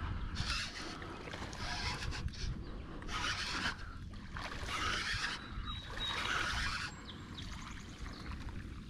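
Fishing reel cranked in short spurts, giving brief hissing whirrs every second or so, as a lure is worked back across duckweed. A low wind rumble on the microphone runs underneath.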